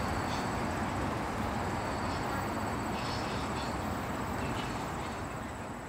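Work train's gondola cars rolling along the rails, a steady rumble of steel wheels on track that begins to fade near the end as the train moves away.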